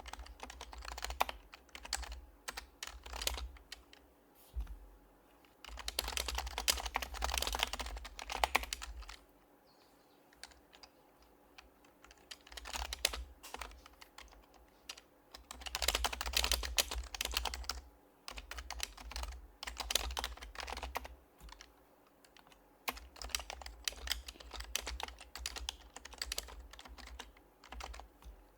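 Typing on an HHKB Professional HYBRID Type-S keyboard with its silenced Topre switches: bursts of fast keystrokes a few seconds long, broken by short pauses.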